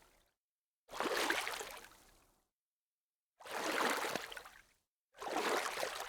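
Water splashing in separate bursts, each starting suddenly and dying away over a second or so: three splashes, about one, three and a half and five seconds in, with dead silence between them.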